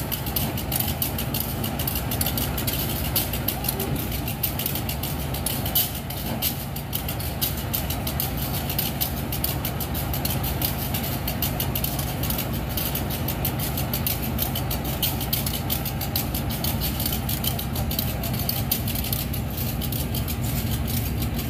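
Diesel locomotive engine idling steadily, a low even hum, with a fast crackle of fine clicks over it.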